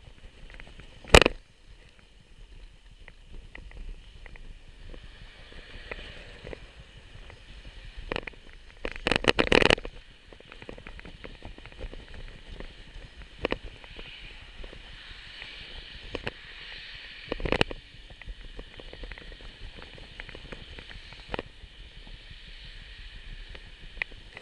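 A bicycle being ridden over road and concrete sidewalk, with a steady rumble and rattle. There is a loud knock about a second in, a burst of clattering near the middle, and another knock later on, as the bike jolts over bumps and joints.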